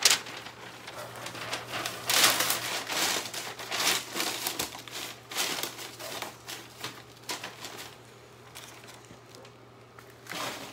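Newspaper rustling and crinkling as a sheet is shaken open and pressed flat into a plastic compost tray, in irregular bursts that thin out over the last few seconds.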